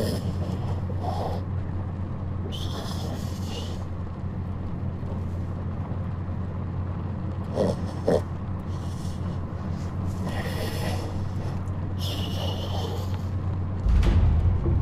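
A vehicle's engine running steadily as a low drone, with several short breathy hisses over it.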